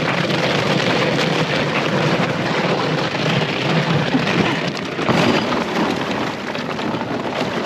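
A canoe hull grinding and crunching over thin ice and sticky snow as it is pushed toward open water, a steady crackling scrape with a couple of sharper cracks.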